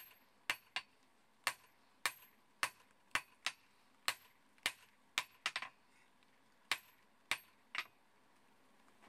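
Hand hammer striking hot steel held on an anvil: sharp metal-on-metal blows at about two a second, some in quick pairs, with a short pause past the middle. The blows stop about eight seconds in.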